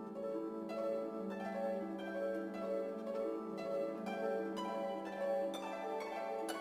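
Background music: a light melody of short plucked-sounding notes, a new note about every half second, over a held low tone.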